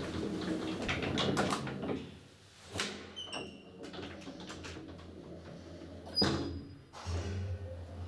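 Lift's folding inner doors rattling and clicking open, then shutting with a sharp bang about six seconds in. A steady low hum follows as the car starts to move.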